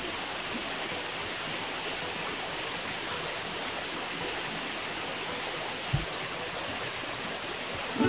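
Shallow river water rushing steadily over stones, with one brief low thump about six seconds in.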